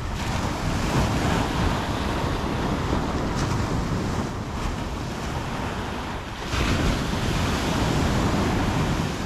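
Ocean surf washing onto a sandy beach, a steady rushing that swells and eases, with wind on the microphone; a wave surges in about two thirds of the way through.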